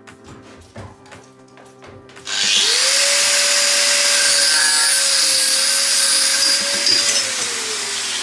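Handheld angle grinder spinning up about two seconds in, grinding on the steel tube frame with a steady high whine and a loud hiss for about four and a half seconds, then winding down near the end. Before it starts there are a few light clicks of handling.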